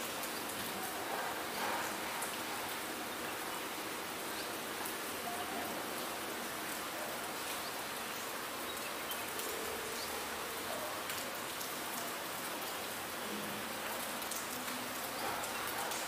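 Steady rain falling, an even hiss with scattered individual drops ticking on hard surfaces.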